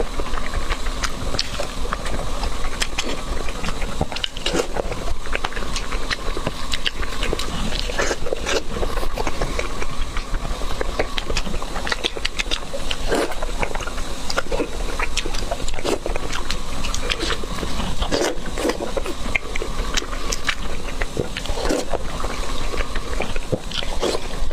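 Close-up crunching of someone biting and chewing crispy fried chops, irregular sharp crackles throughout, over a steady faint hum.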